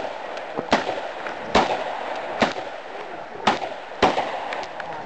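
Handgun shots in a steady string, about one a second, with fainter shots from other shooters on the line between them.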